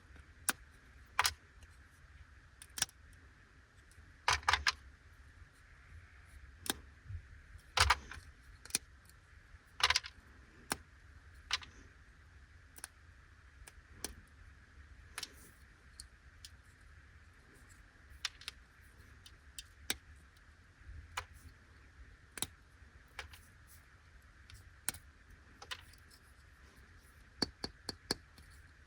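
Irregular light clicks, taps and crinkles of a Chiikawa Kyara-paki chocolate and its plastic packaging being handled, with a few sharper clicks about 1, 4 and 8 to 10 seconds in.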